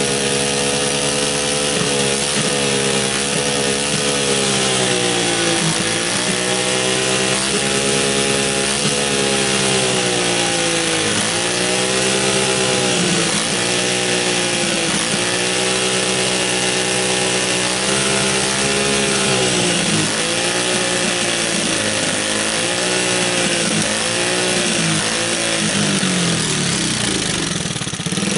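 Small Chinese ATV engine running on its newly fitted replacement DC CDI ignition: a sign the homemade ignition works. Engine speed sags and picks back up again and again, with a rough spell near the end.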